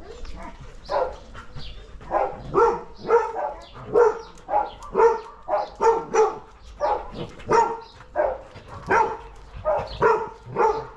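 A dog barking over and over at an even pace, about two barks a second, starting about a second in.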